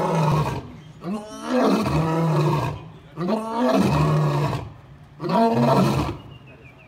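Male lion roaring: four long, deep roars with short gaps between them, each rising and then falling in pitch.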